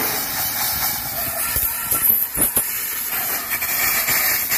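Compressed-air blow gun hissing steadily as it blows out the holes of a grooved steel hydraulic part, with a few light knocks about two seconds in.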